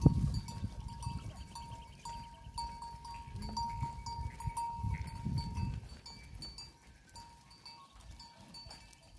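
A large herd of goats on the move, bleating now and then, with a light, regular clinking like small bells. The sound fades toward the end.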